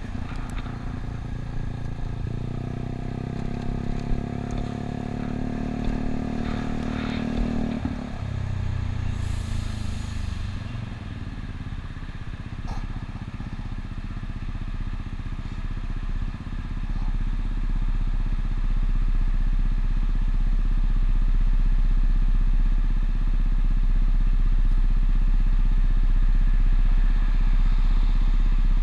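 Yamaha Cygnus 125 cc single-cylinder scooter engine pulling steadily for a few seconds, then its revs falling away as it slows to a stop, after which it sits idling. A brief hiss comes a second or two after it slows, and a deep low rumble grows louder in the second half.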